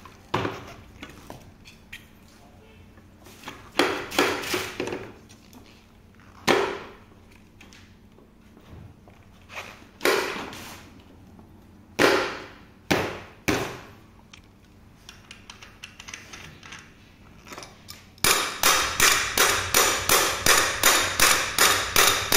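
Scattered knocks and clicks of a scooter's front wheel and axle hardware being handled and fitted into the metal fork. For the last few seconds, a steady run of rapid clicks, about four a second, from a ratchet wrench tightening the axle nut.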